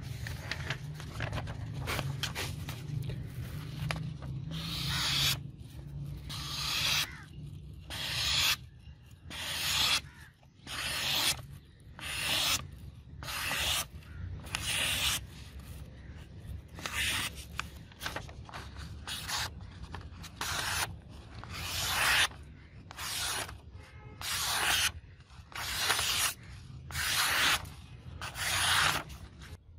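Hand-made chef knife slicing through a sheet of paper, about twenty rasping swishes roughly a second apart, after a few seconds of paper rustling. Each clean cut is a sign of a sharp edge.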